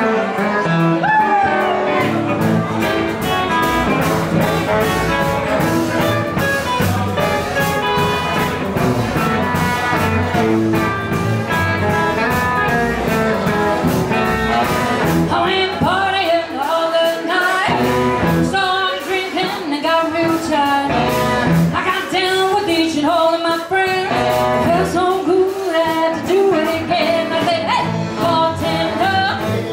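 Live band playing a blues-tinged rock and roll number: electric and acoustic guitars, upright double bass and drums, with a woman singing lead.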